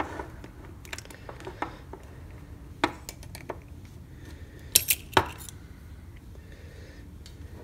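Small metal clicks, taps and scrapes as a screwdriver pries parts out of a LaGard 2270 key-operated safe lock's metal case. The sounds are scattered, with a few sharper clicks about five seconds in.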